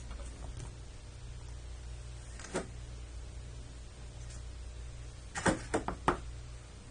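Small plastic toy figure handled and set down on a hard tabletop: a light tap, then a quick cluster of three or four clicks and knocks about five and a half seconds in, over a steady low hum.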